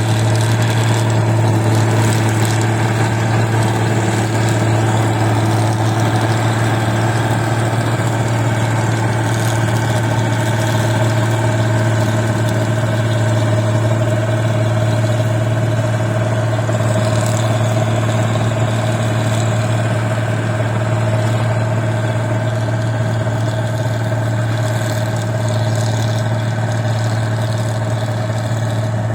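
Rice combine harvester's diesel engine running steadily under constant load, with a strong even low hum and a steady higher whine from its drive and cutting gear.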